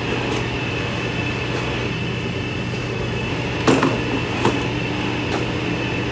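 Checkweigher conveyor belts running with a steady motor hum and whine. A little past halfway come two sharp knocks as a cardboard box passes from one conveyor onto the next.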